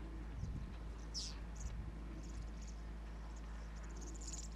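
Bush ambience over a steady low hum. A bird gives a short call that falls in pitch about a second in, with a few brief high chirps, and insects start a high pulsing buzz near the end.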